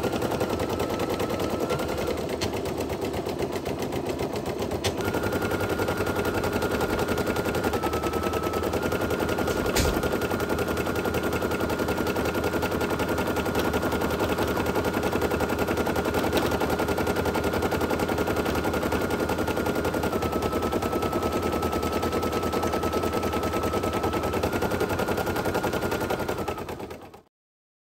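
Brother SE1900 embroidery machine stitching a design: a rapid, steady chatter of needle strokes over a motor whine whose pitch steps slightly up and down every few seconds. It stops abruptly near the end.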